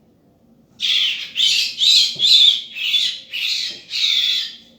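Small wild bird giving a rapid run of about seven loud, harsh squawking calls, starting about a second in: distress calls of a bird being held in the hand.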